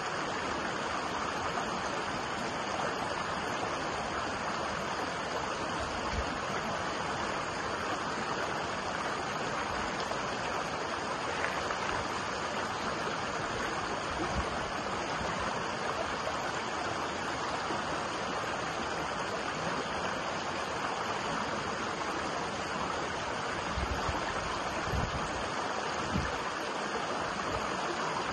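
Shallow rocky stream running over stones and small cascades: a steady, even rush of water, with a few soft low thuds near the end.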